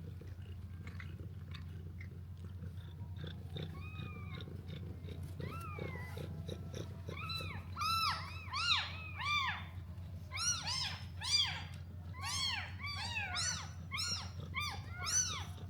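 Newborn kittens mewing: a few faint high calls at first, then from about halfway a rapid run of many short, high-pitched mews, several overlapping, over a steady low hum.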